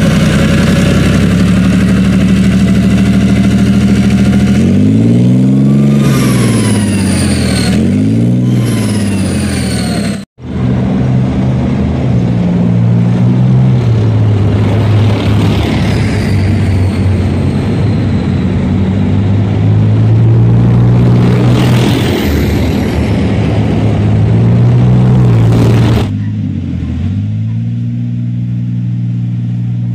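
Leopard 2 tank's MTU MB 873 twin-turbo V12 diesel running, revved up and back down twice about five seconds in. After an abrupt cut about ten seconds in it runs on steadily, then drops to a quieter level at another cut near the end.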